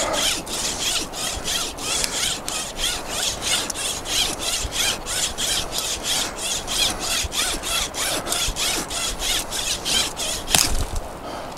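Spiral wire saw strung in a homemade bow-saw frame, sawing a dead branch about two inches thick in quick, even strokes, about four a second. About ten and a half seconds in, a sharp crack as the branch breaks through, and the sawing stops.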